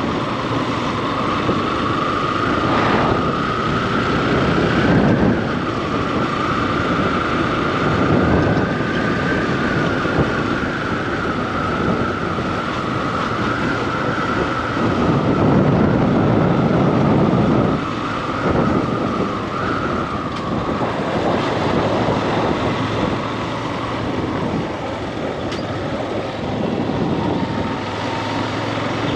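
Motorcycle running steadily along a road, heard from the rider's seat: an even engine whine under a rushing noise of wind on the microphone that swells and fades several times.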